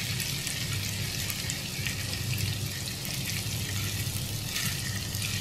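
Spice-coated fish pieces shallow-frying in soybean oil, a steady sizzle with faint scattered crackles. A steady low hum runs underneath.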